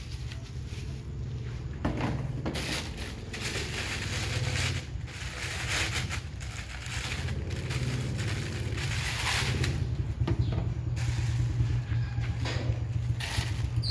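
Plastic packaging and bubble wrap crinkling and rustling in irregular handfuls as items are unwrapped, over a steady low drone.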